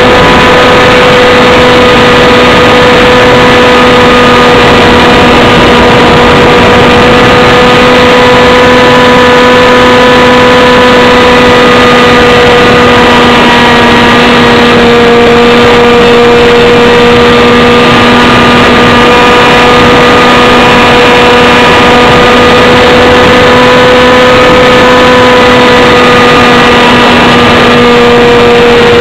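Small aircraft's engine running loud and steady, close to the onboard camera, its pitch dipping slightly about halfway through and again near the end.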